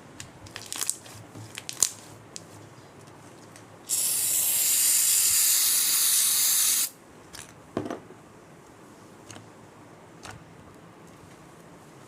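Aerosol can spraying in one steady hiss of about three seconds, a few seconds in, typical of foam being sprayed out for slime. A few short clicks and taps of handling come before it, and a soft thud after.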